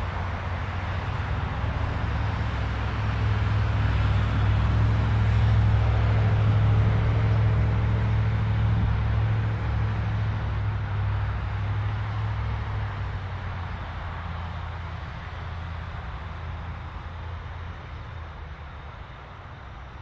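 Low engine drone of a passing motor vehicle, swelling to its loudest about six to eight seconds in, then slowly fading away.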